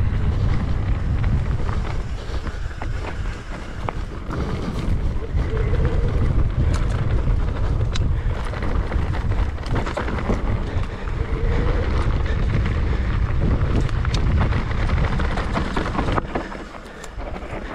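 Wind buffeting the microphone of a camera on a moving mountain bike, a heavy low rumble, with scattered sharp clicks and rattles from the bike over rough trail.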